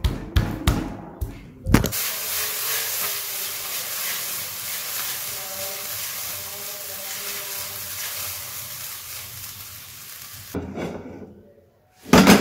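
A knife chopping garlic on a wooden cutting board, a few quick knocks, then food sizzling in a hot pan as a steady hiss that stops about ten and a half seconds in.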